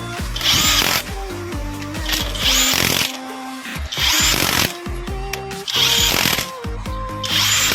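Background music with a stepping melody, plus a loud hiss-like burst about every second and a half.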